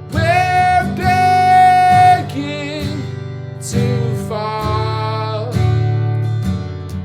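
Martin GPCPA4 acoustic guitar strummed in a looped accompaniment, with a voice singing two phrases of long held notes over it.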